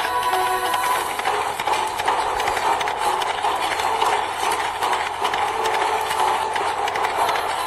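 Galloping horse: a dense, rapid run of hoofbeats. Music carries over from before and fades about a second in.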